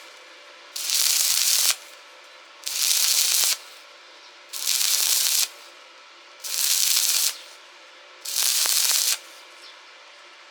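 Welding arc crackling in five short bursts, each just under a second long and about two seconds apart, with a steady machine hum between them.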